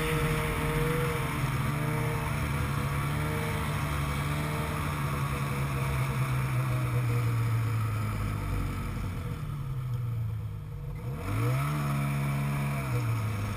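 Snowmobile engine running as the sled slows down, its pitch falling steadily until it settles low. About eleven seconds in it revs up once briefly and drops back again.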